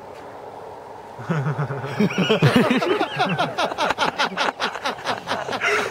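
People laughing and calling out excitedly, starting about a second in, in quick repeated bursts with a steady faint hum beneath.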